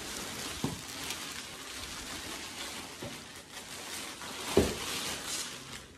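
Clear plastic wrapping rustling and crinkling as it is pulled off a new kids' kick scooter, with a few light knocks. The sharpest knock comes about four and a half seconds in.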